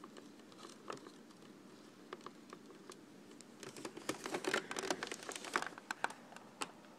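Faint handling noise: scattered light clicks and rustles of hands on a plastic TV case and its wiring, coming thicker from about halfway through.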